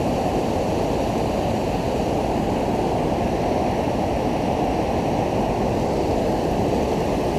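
River water rushing steadily through shallow rapids, with whitewater churning close to the microphone.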